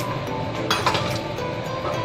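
Background music, with two quick clinks of a utensil against a glass mixing bowl a little under a second in.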